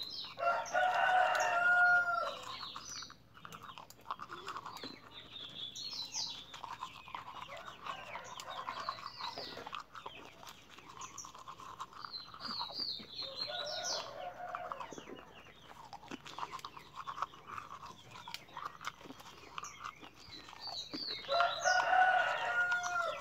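A rooster crowing twice, once about a second in and again near the end, with short high bird chirps every few seconds in between.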